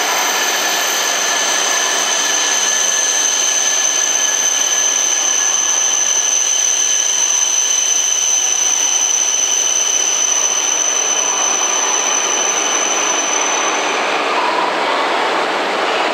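E3 and E5 series Shinkansen train coupled together, rolling slowly alongside the platform as it pulls in. A steady rushing of running gear and motors, with a high steady whine that stops about fourteen seconds in.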